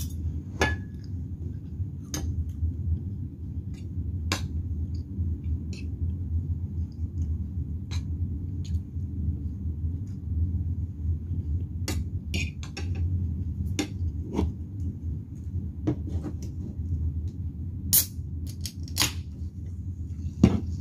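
Metal fork and spoon clinking and scraping against a ceramic plate while eating, in scattered short clicks, over a steady low hum.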